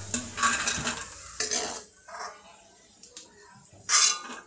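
Steel ladle scraping and stirring in a metal kadhai as chopped cashews fry in ghee with a faint sizzle, then scooping them out onto a steel plate. The scrapes come in several short strokes, the loudest near the end.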